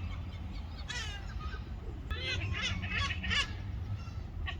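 Gulls calling: one call about a second in, then a run of short, repeated calls, over a steady low rumble.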